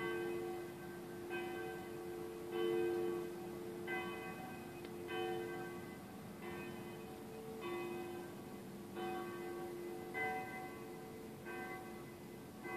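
Bells ringing in a steady, even rhythm, a new stroke about every second and a quarter, each ringing on over the next.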